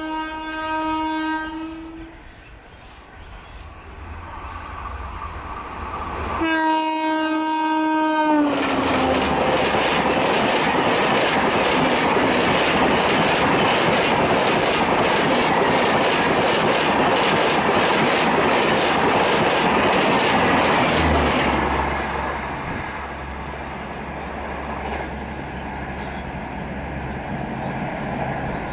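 A WAP4 electric locomotive hauling a high-speed express sounds its horn twice: one blast fades out about two seconds in, and a second around six seconds in drops in pitch at its end as the locomotive goes past. The coaches then rush past for about thirteen seconds with a loud, rapid clickety-clack of wheels over the rails. This stops abruptly, leaving a lower, steady rumble as the train draws away.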